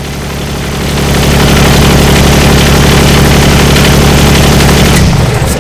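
Kubota L2501 compact tractor's diesel engine running steadily, growing louder over the first second and a half, then dropping away near the end.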